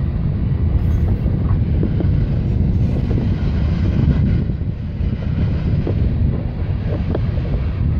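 CSX freight train's diesel locomotives passing, followed by the rolling of its freight cars, with wind on the microphone.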